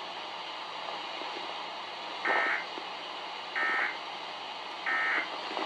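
NOAA Weather Radio SAME end-of-message code closing a weekly test: three short bursts of warbling digital data tones about 1.3 seconds apart, the signal that the alert message is over. They come through a weather radio speaker over a steady hiss.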